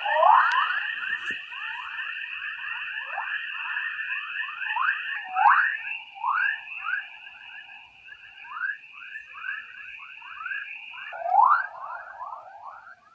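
Spacecraft recording of electromagnetic (radio or plasma-wave) emissions converted into audible sound: a quick run of short whistling chirps, several a second, over a steady high-pitched hiss. The chirps thin out about halfway through, with a louder cluster near the end.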